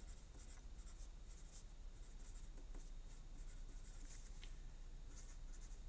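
Pencil scratching faintly on paper in short, uneven strokes as words are written by hand.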